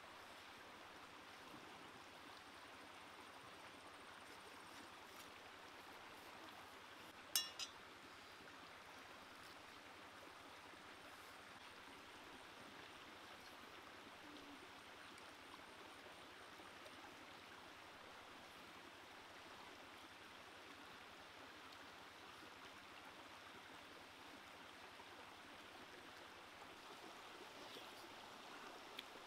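Faint, steady babble of a shallow stream running over rocks, with one sharp click followed quickly by a smaller one about seven seconds in.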